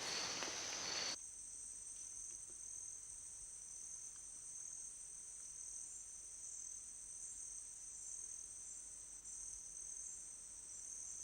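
Chorus of rainforest insects calling in a steady, high-pitched drone. A louder, broader hiss cuts off about a second in.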